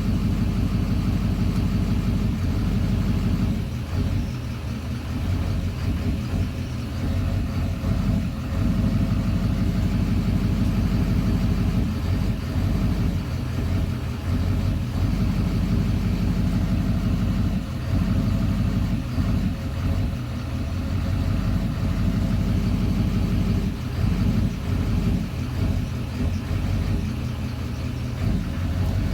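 2009 Duramax 6.6-litre V8 turbo-diesel idling rough in drive, its loudness wavering unevenly; the roughness goes away in park.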